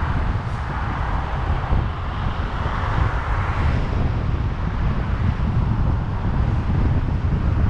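Steady wind buffeting on a car-mounted camera's microphone over the low road rumble of a 2018 Nissan Armada driving along.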